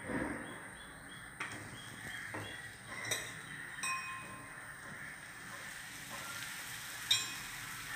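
A few light knocks and clinks of kitchen utensils over a faint steady hiss, as a chapati is handled and cooked on an iron tawa. The sharpest knock comes near the end.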